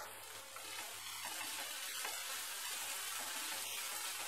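Chopped vegetables sizzling in hot oil in a kadai, a steady hiss, with a wooden spatula starting to stir them near the end.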